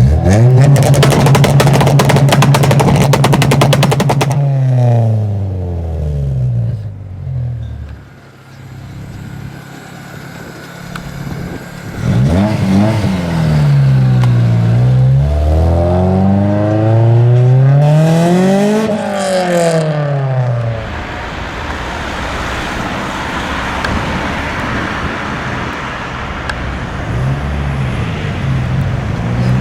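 Honda CRX's B16A inline-four revved hard and held high for about four seconds with a rapid crackle, then dropping back. After a short lull it is blipped several times, the pitch rising and falling. A steadier rushing noise follows, with the engine note returning low near the end.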